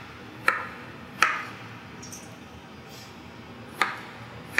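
Chef's knife slicing a red potato and knocking down onto a plastic cutting board: three sharp knocks, two close together in the first second and a half and one near the end.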